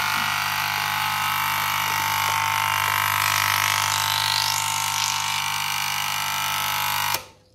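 Ticker timer buzzing steadily, its tapper striking 50 times a second onto carbon paper as paper ticker tape is pulled through it. The buzz cuts off suddenly near the end.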